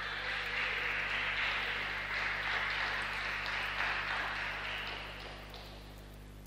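A small crowd of spectators applauding. The clapping dies away about five seconds in.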